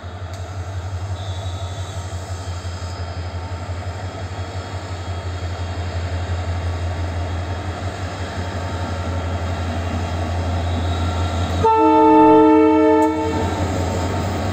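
EMD WDG4 diesel-electric locomotive (16-cylinder two-stroke EMD 710 engine) approaching, its engine drone growing steadily louder. Near the end it sounds one horn blast of several tones together, about a second and a half long.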